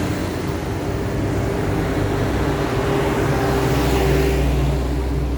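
A road vehicle passing close by: steady engine hum and tyre rush that swell to their loudest about four seconds in.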